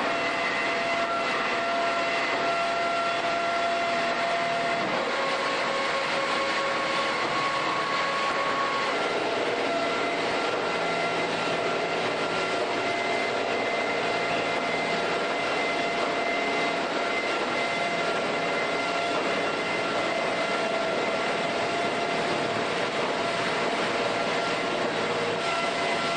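HEMSAW DC8080 bandsaw blade cutting through a pickup truck's steel body: a loud, steady grinding hiss with several steady whines over it that shift in pitch about five and nine seconds in.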